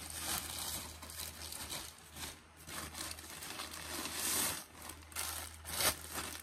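Plastic packaging bag crinkling and rustling in irregular bursts as clothing is handled.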